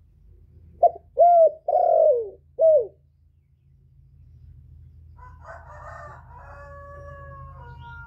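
Male spotted dove cooing its song: four loud coo notes in quick succession, the third drawn out the longest. About five seconds in, a fainter drawn-out sound with several steady held tones follows.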